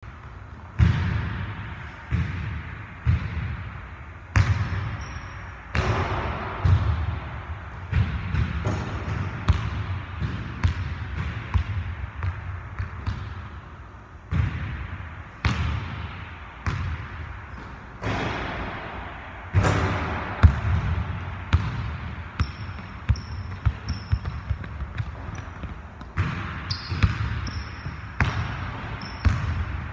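Basketball bouncing on a hardwood gym floor in irregular bounces, each one echoing through the large hall. Sneakers squeak briefly on the court now and then, most often near the end.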